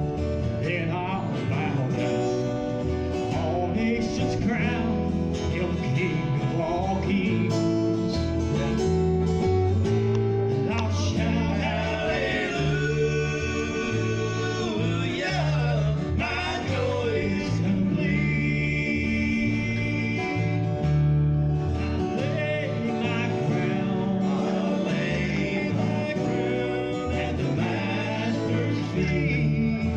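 Country gospel music with acoustic guitar and a bass line, playing as an instrumental stretch of the song.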